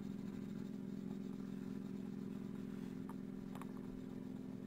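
Steady hum of a small electric motor running at an even speed, with a couple of faint clicks about three seconds in.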